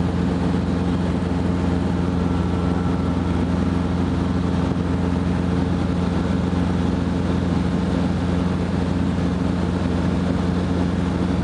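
Cabin noise of a Robinson R22 helicopter in cruise: a steady, even drone from its piston engine and two-blade rotor, heard from inside the cabin.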